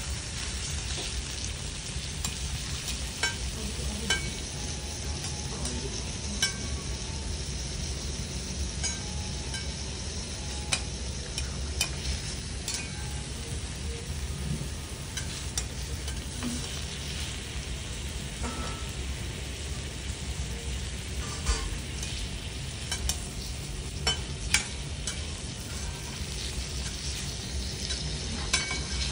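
Wagyu steak and garlic chips sizzling steadily on a teppanyaki steel griddle, with occasional sharp metallic clicks of the chef's spatula and knife striking the plate.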